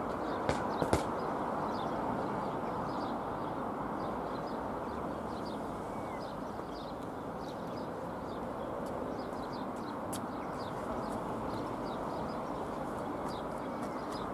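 Distant, steady jet roar of a Dassault Falcon 20's General Electric CF700 turbofans as the aircraft flies away, easing slightly. Faint small-bird chirps run above it, and there are two sharp clicks in the first second.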